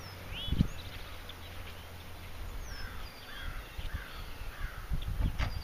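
Scattered bird chirps and calls over a faint low hum of honey bees stirred up around an opened hive, with a few low thumps about half a second in and again near the end.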